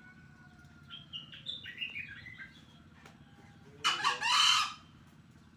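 Green junglefowl cock crowing once about four seconds in: a short, harsh, high-pitched crow lasting under a second.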